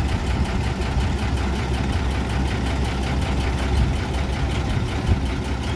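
Large vehicle engine idling steadily close by, an even low rumble.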